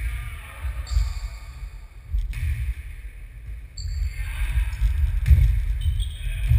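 Ball game in an echoing sports hall: a ball struck and bouncing on the wooden floor, with sharp thuds about two seconds in and again about five seconds in, over a steady low rumble.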